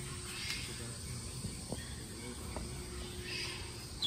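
Quiet background ambience: a steady low hum with faint hiss that swells softly twice, and a few faint clicks.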